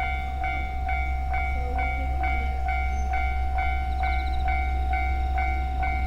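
Japanese railway level crossing warning bell ringing steadily, about two strikes a second, over a steady low rumble.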